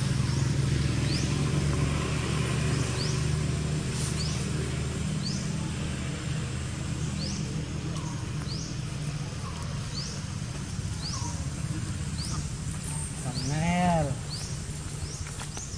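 Outdoor ambience: a steady low hum under a short, high, rising chirp repeated every second or so. Near the end comes one brief pitched call that rises and falls.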